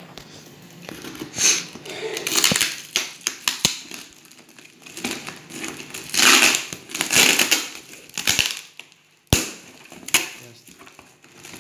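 Cardboard parcel wrapped in plastic packing tape being handled and picked at by hand: irregular crinkling and scraping of tape and cardboard in short bursts, with a couple of sharp taps.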